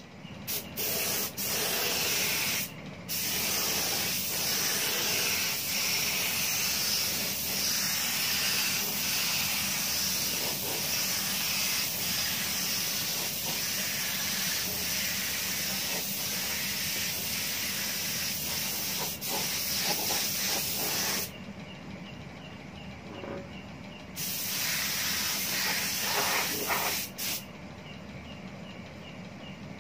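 Compressed-air paint spray gun spraying in long steady hisses. There is a short break near the start, a pause of a few seconds about two-thirds of the way through, then a final pass that cuts off a couple of seconds before the end.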